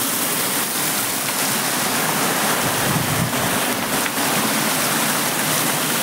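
Stream water running over rocks: a steady rushing noise.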